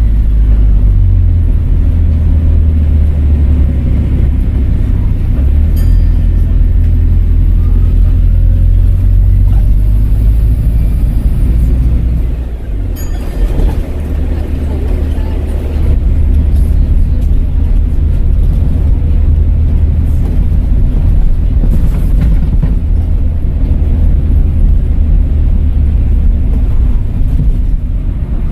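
Volvo B5LH hybrid double-decker bus under way, its diesel engine making a steady low drone. The drone eases off briefly about twelve seconds in, then picks up again.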